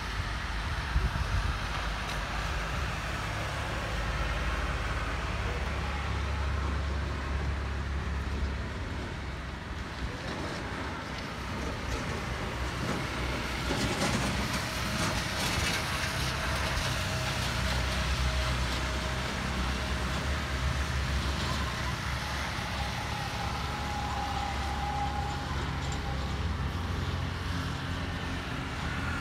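Street traffic on a wet road: motorbikes and cars passing under a steady low rumble, with one louder pass about halfway through.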